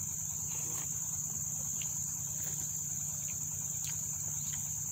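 Steady high-pitched insect chorus, one unbroken buzzing tone, over a low steady hum, with a few faint short clicks.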